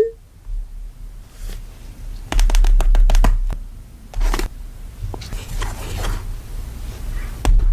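Close-miked handling sounds: crinkling, scratching and clicks in irregular clusters, with thumps of rumble on the microphone, loudest between about two and three and a half seconds in.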